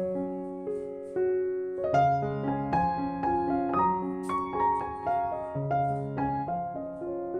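Background piano music: a slow, gentle melody over held low notes.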